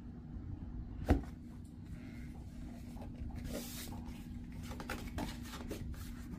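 A cardboard product box being opened and handled: a sharp tap about a second in, a brief scraping hiss of cardboard sliding at about the middle, then a few light taps and clicks.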